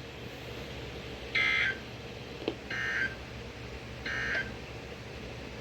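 NOAA Weather Radio SAME digital data bursts: three short bursts about a second apart, the end-of-message code that closes a broadcast flash flood warning. A single click falls between the first two bursts, over the radio's faint hiss.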